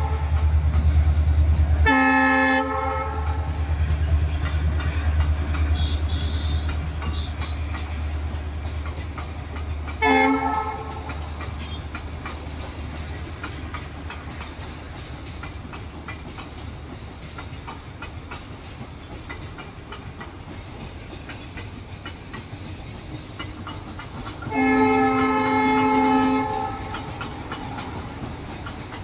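Container freight train wagons rolling past with a low rumble and small clicks of wheels over rail joints; the rumble eases off after about ten seconds. A train horn sounds briefly about two seconds in and again about ten seconds in, then gives a longer blast of about two seconds near the end.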